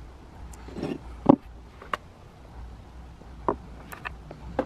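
Handling noise of small rusty metal pieces and tools on a wooden table: several separate sharp clicks and knocks, the loudest about a second in.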